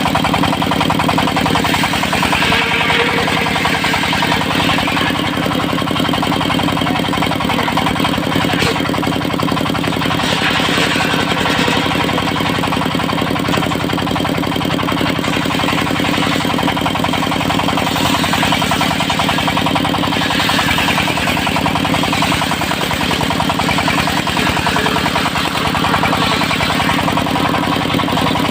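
Engine of a mobile circular-saw sawmill running steadily, with a higher hiss that swells and fades every several seconds.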